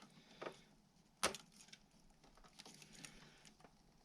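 One sharp click about a second in, with a fainter click before it and light taps and rustles, from hands working plastic electrical connectors and wiring on the motorcycle.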